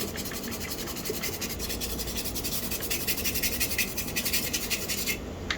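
A small circuit board, wet with isopropyl alcohol, being scrubbed in rapid back-and-forth strokes to clean off suspected corrosion. The scrubbing stops sharply about five seconds in.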